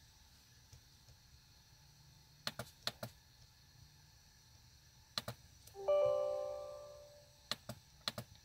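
Laptop touchpad or mouse buttons clicking, mostly in quick pairs, with a short computer chime of several tones about six seconds in that dies away over about a second.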